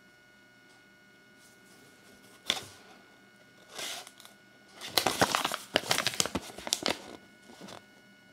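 Crinkling and rustling of a folded paper leaflet from a Kinder Surprise egg as it is handled and unfolded. There are two short rustles, then a dense run of crinkling lasting about two seconds past the middle.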